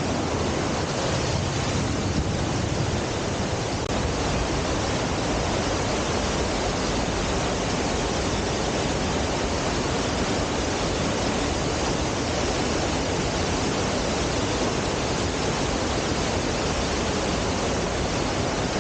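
Tat Kuang Si waterfall: a steady rush of falling water.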